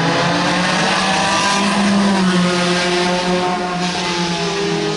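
Two-litre BMW four-cylinder engine of a 1974 Formula 2 racing car running at high revs, its pitch wavering slightly up and down and rising again near the end.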